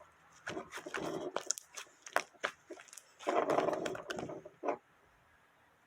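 Slime being squished and pulled by hand: sticky crackling and wet clicks in two spells, with sharp pops between them, stopping abruptly a little before the end.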